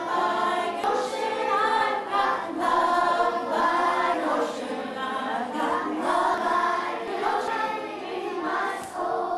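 A group of children singing together in unison.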